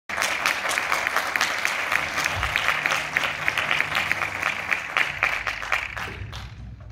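Audience applauding, a dense patter of many hands that thins out and fades away near the end.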